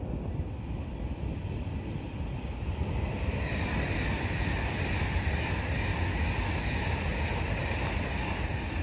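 Passenger train passing along the main line: a rushing wheel-on-rail noise swells about three seconds in, holds, and eases off near the end, over a low steady rumble.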